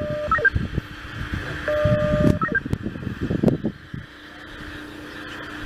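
Radio scanner tones: twice, a held beep followed by a few quick higher chirps, over a steady low hum and low rumbling noise.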